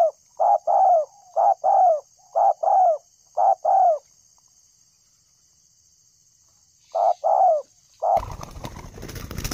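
Spotted doves cooing: short two-note coos, about one pair a second for four seconds, then a pause and one more pair about seven seconds in. Near the end a noisy rustle cuts in, and a faint steady high whine runs underneath.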